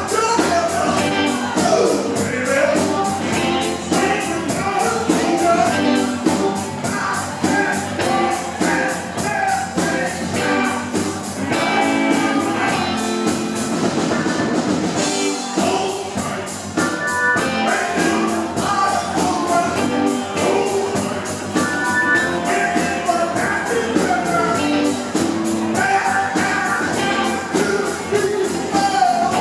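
Live rock band playing, with electric guitars, bass, drum kit and keyboard under a steady drum beat, and a voice singing over them.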